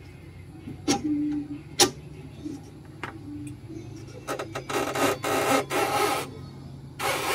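A few sharp metallic clicks, then repeated bursts of scraping and rubbing from about four seconds in as a steel exhaust pipe section is worked loose from its joint and hanger under a car.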